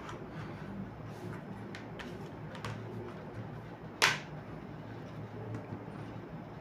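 Quiet room tone with faint handling ticks and one sharp click about four seconds in, as a plastic charger and a tablet are handled on a tabletop.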